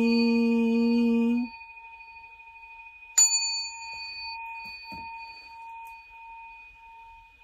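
A Buddhist priest's sutra chanting ends on a long held note about a second and a half in. A rin, the Buddhist altar bowl bell, is then struck once and rings on with a wavering hum that slowly fades. There is a soft knock about two seconds after the strike.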